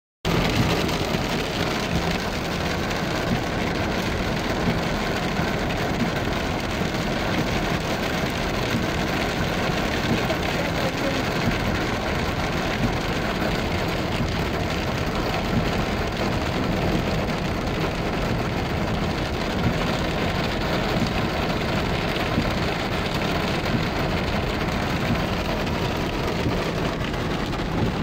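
Heavy downpour falling on a car, heard from inside the car: a steady, even rush of rain.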